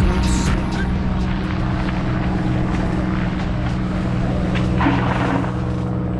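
Mountain bike ride noise: tyres rolling over the trail with rattle and wind on the camera, over a steady low hum.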